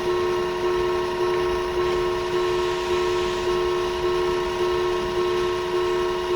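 Japanese railroad crossing alarm ringing: an electronic two-tone bell repeating evenly at nearly two strikes a second, the warning that the crossing is closed for a train.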